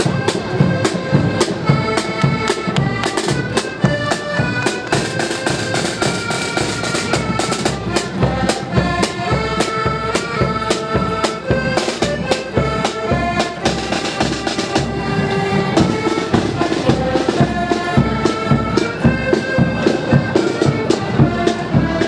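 Accordion band playing a march on the move: several accordions carry the tune over side drums and a steady bass drum beat.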